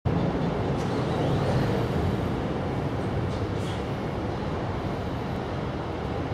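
Steady low rumble of road traffic, with a few faint high chirps over it.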